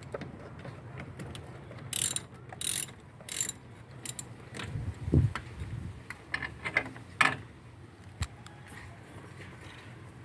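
Hand tools loosening a car battery's terminal clamps to disconnect the battery: three short spurts of ratcheting about two to three and a half seconds in, then scattered metallic clicks and knocks.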